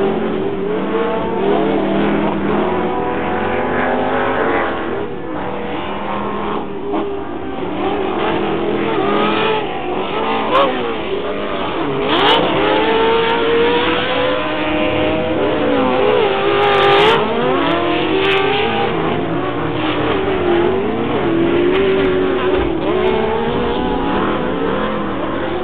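Engines of several off-road race vehicles on a dirt short course, revving up and down as they accelerate and lift through the turns. Several engine notes overlap, rising and falling throughout.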